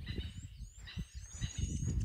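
Birds chirping in the bush, with short gliding calls, over a low, irregular rumble.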